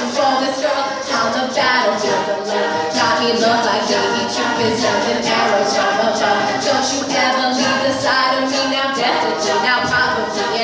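A cappella group singing a pop medley, a mixed ensemble of voices carrying the harmony over a vocal-percussion beat.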